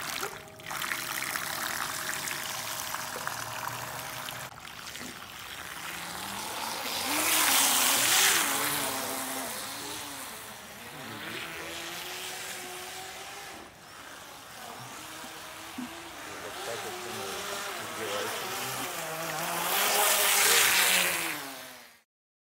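RC speedboat's twin Racerstar 2205 brushless motors and cut-down propellers running at half throttle, a motor whine that rises and falls in pitch over a steady wash of prop and water noise. It swells loudest about eight seconds in and again near the end, then cuts off suddenly.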